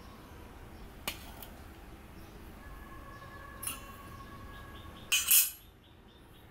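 Stainless steel bowls and a metal spoon clinking on a table: a single ringing clink about a second in, a lighter one past the middle, and a louder double clatter near the end as the spoon is set into a steel bowl.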